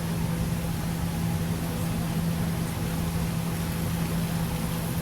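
Steady running hum of an excursion train: one constant low drone over an even rushing hiss.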